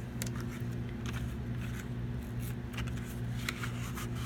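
Scattered faint scratches and clicks of paper and drawing supplies being handled, over a steady low hum.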